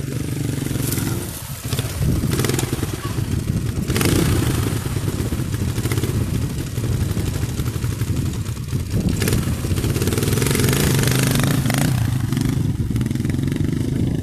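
Several motorcycles, a mix of dual-purpose and small street bikes, running at low speed around a dirt practice course, with swells of rushing noise over the engines now and then.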